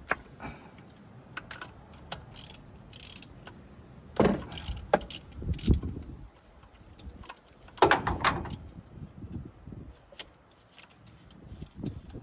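A socket ratchet and other hand tools clicking and clinking against metal as a spark plug is changed. The clicks are scattered and irregular, with louder clusters of knocks about four, six and eight seconds in.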